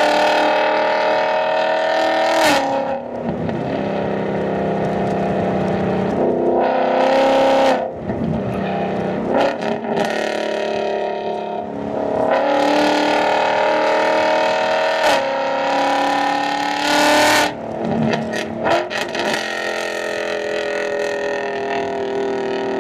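S550 Ford Mustang V8 exhaust running hard, its revs climbing and dropping several times, with sudden drops in pitch between pulls.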